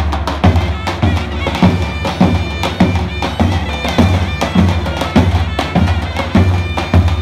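Traditional folk music: a reedy, bagpipe-like wind instrument holds a melody over a steady low drum beat, a little under two beats a second.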